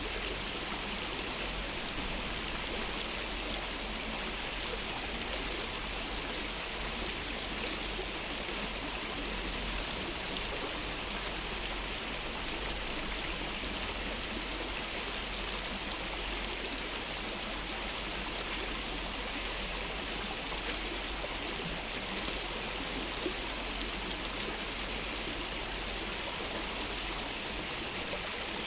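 Running water of a stream: a steady, even rush with no change in level.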